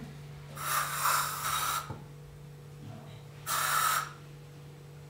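Aerosol can of cockroach insecticide spraying in two hissing bursts, the first over a second long and the second about half a second.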